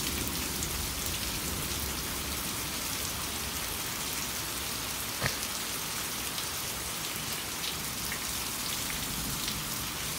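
Steady thunderstorm rain pouring down, with scattered drops ticking close to the microphone and one sharper tap about five seconds in.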